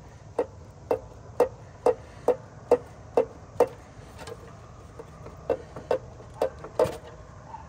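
Sharp metallic clicks from a hand tool working at a radiator hose connection, about two a second: a run of eight, a pause, then four more.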